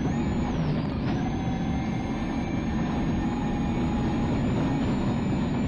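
Mitsubishi Lancer Evo 6.5 WRC rally car's turbocharged four-cylinder engine running hard at speed on a gravel road, heard from inside the cabin, mixed with a steady rumble of tyres and gravel.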